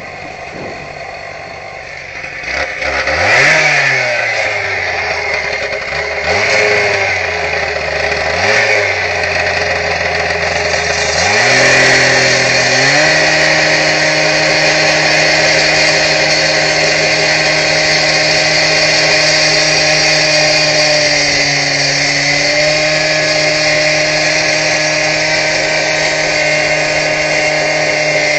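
Power masonry saw revved up and left to spin down about three times, then held at a steady high speed from about halfway in while it cuts along the bottom courses of a brick wall.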